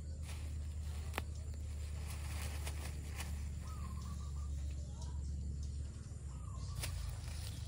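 Outdoor ambience: a steady low rumble, a few sharp clicks and faint, short bird chirps.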